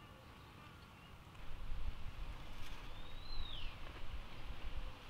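Forest birds calling faintly, then about a second and a half in a low, uneven rumble of wind gusting on the microphone starts and stays. Midway a bird gives one clear whistle that rises and then falls.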